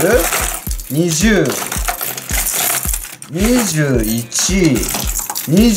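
Hard plastic fishing lures with metal treble hooks clattering and clinking as they are lifted out of a plastic tackle box onto a table, over background music with a steady beat and a rising-and-falling melody.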